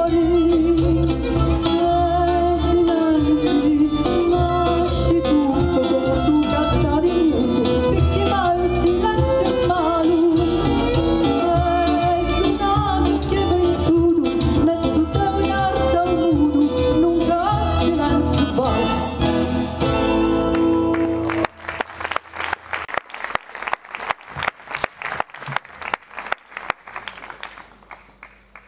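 A woman singing fado with an acoustic band of guitars, live on stage. About 20 seconds in the singing stops on a held chord, followed by a string of single picked notes, each struck and fading, that dies away near the end.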